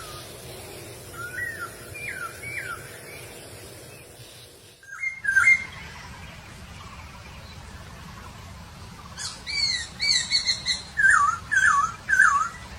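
Masked laughingthrush singing: short whistled notes sliding up and down in small phrases. Near the end comes a louder run of chattering notes, closing with a few downward-slurred whistles.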